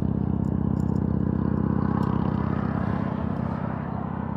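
A vehicle engine idling steadily close by, with an even, fast low pulse that eases off slightly near the end.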